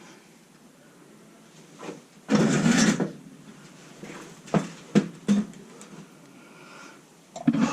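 Hardware being handled during the install: a loud rattling scrape about two seconds in, like parts being rummaged or slid, then three short sharp knocks of metal parts.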